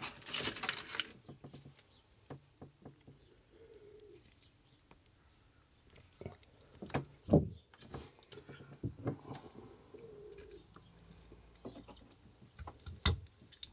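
Hands at work on a plastic dashboard: pliers squeezing a speaker-wire connector tight, and the car speaker being handled, giving scattered sharp clicks and knocks. A pigeon coos faintly twice in the background.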